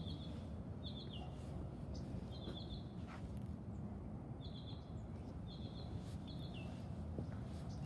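A small bird chirping over and over, short calls that step down in pitch, roughly one or two a second, over a steady low rumble.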